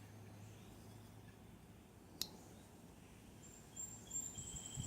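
A single sharp click about two seconds in, from the blade of a slip-joint pocket knife snapping on its backspring. A low steady hum runs underneath, with faint handling noise near the end.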